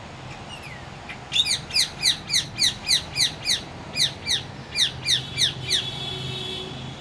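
Parrot calling: a fast run of short, sharp, falling chirps, about three a second, starting about a second in, ending in a brief steady screech.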